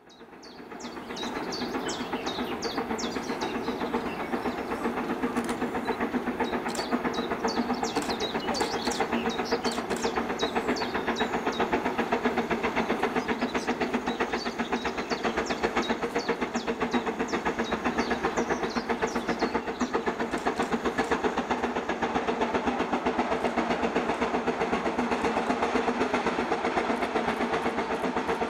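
BR Standard Class 9F 2-10-0 steam locomotive 92214 running with a goods train of tank wagons, a steady rhythmic working sound of locomotive and rolling wheels that fades in over the first second or two. Short high squeaks or chirps sound over it through roughly the first twenty seconds.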